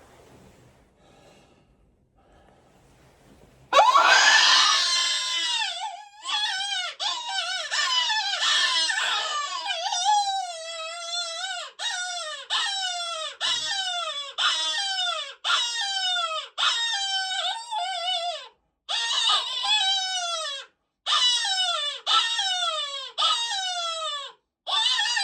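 Electronic predator call playing an animal distress sound: a loud run of crying, screaming calls starts about four seconds in, each call falling in pitch, repeated about once or twice a second with short breaks near the end.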